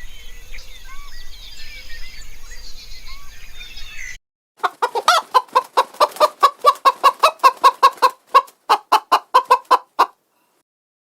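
Small birds chirping in a busy chorus; then, after a cut, an animal gives a rapid run of sharp, repeated calls, about four a second, which stops abruptly near the end.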